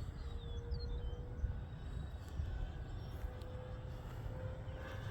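Electric RC plane's brushless motor and propeller running as a thin steady whine that slowly rises in pitch, over wind rumbling on the microphone. A bird chirps a few times about a second in.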